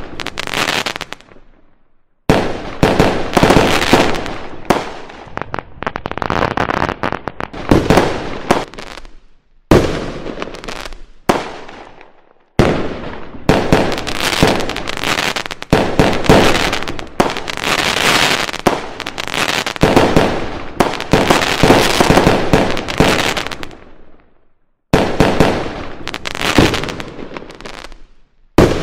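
Fireworks going off in dense, rapid volleys of sharp bangs and crackles. The sound stops abruptly and starts again about four times.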